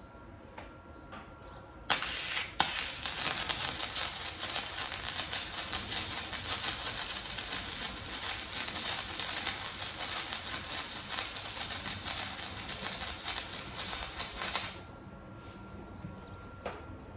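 Electric welder's arc crackling steadily as a bead is laid on 16-gauge square tubing: a short strike about two seconds in, then after a brief break a continuous weld of about twelve seconds that cuts off suddenly.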